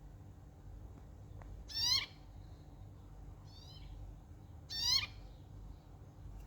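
Birds calling back and forth: short, rising, pitched calls, a loud one about two seconds in and another about five seconds in, with a fainter answering call between them.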